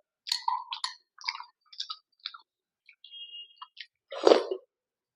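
Mouth sounds of someone tasting thick, creamy rabdi lassi: a run of short lip smacks and slurps, then one louder mouth sound about four seconds in.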